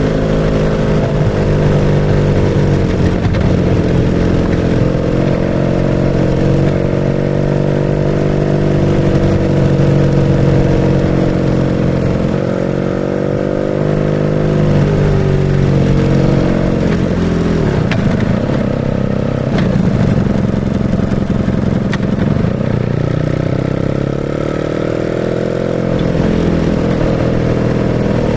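BMW R nineT's 1170 cc boxer-twin engine running through a Pro Race GP S1 aftermarket exhaust while riding, its pitch climbing under acceleration and falling back several times as it shifts and rolls off the throttle.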